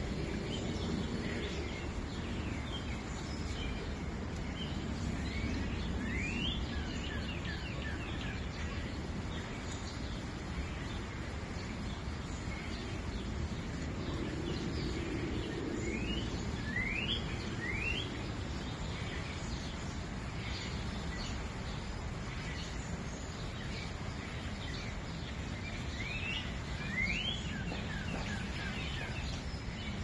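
Shallow forest stream flowing over its bed, a steady rushing hiss. Birds call over it with short rising chirps: once about six seconds in, a few in the middle, and again near the end.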